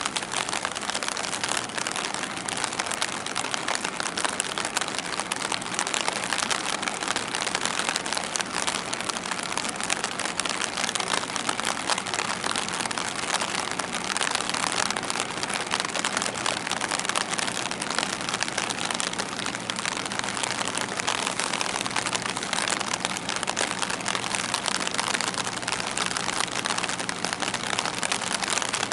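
Steady hiss of rain falling, a dense fine patter with no breaks.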